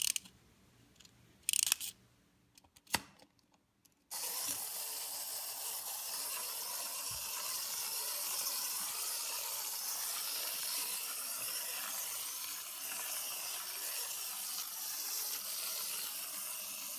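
Small plastic wind-up toy train: a few ratchet clicks as it is wound, then, about four seconds in, its clockwork spring motor starts a steady high whirr as the train runs along the track.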